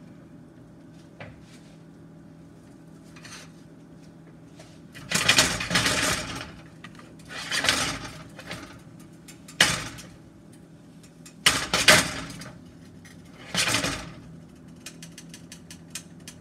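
Kale sautéing in a frying pan, stirred and tossed with a spatula: five bursts of sizzling and scraping, each about a second long, over a steady low hum.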